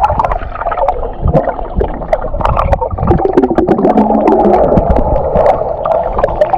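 A boat under way: engine noise mixed with rushing water, with scattered knocks and splashes over a steady low rumble.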